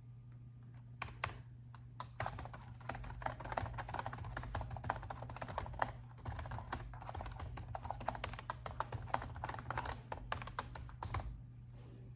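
Typing on a laptop keyboard: a few scattered keystrokes, then fast, continuous typing from about two seconds in that stops shortly before the end. A steady low hum runs underneath.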